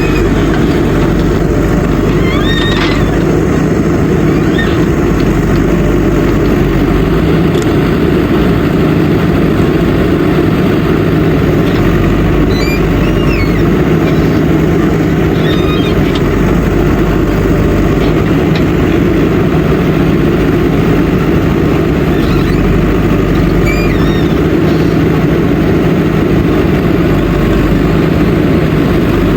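JCB backhoe loader's diesel engine running steadily, with no pause or change in level. Short, faint chirps sound over it every few seconds.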